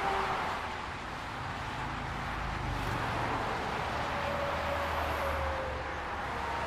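Highway traffic: a steady rush of tyre and engine noise from passing vehicles, with a low rumble and a few faint tones sliding slowly down in pitch as vehicles go by.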